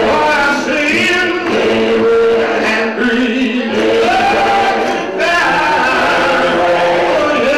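Gospel choir singing in harmony, with a man's lead voice over the group.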